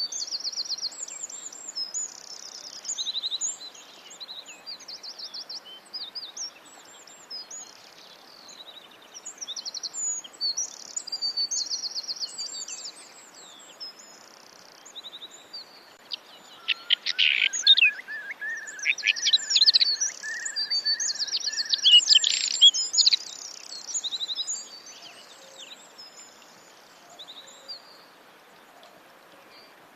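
Several songbirds chirping and trilling over a faint steady hiss. A little past halfway there is a louder stretch of rapid trills joined by a run of lower, evenly repeated notes, which then thins out again.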